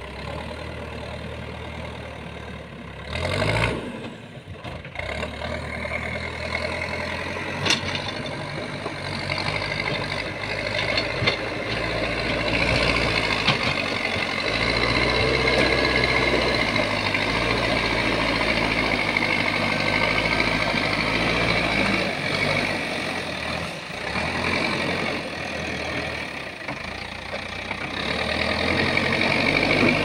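Diesel engine of a Manitou backhoe loader running under load as its front bucket pushes and levels stony soil, getting louder about halfway through, with a few sharp knocks along the way.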